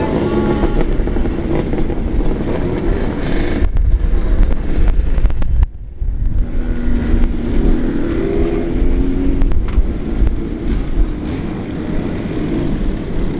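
Old motorcycles riding past close by, their engines running loud and revving. The sound breaks off abruptly for a moment about five and a half seconds in, then picks up again.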